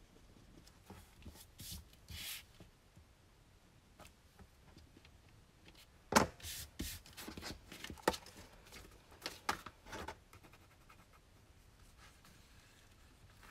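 Cardstock being worked with a bone folder on a cutting mat: short rubbing and scraping strokes as the folds are creased and the paper is slid and handled. A sharp tap about six seconds in is the loudest sound, followed by a run of strokes until about ten seconds in.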